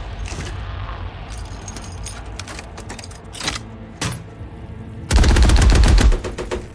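Scattered single gunshots over a low rumble, then, about five seconds in, a loud burst of rapid machine-gun fire lasting about a second.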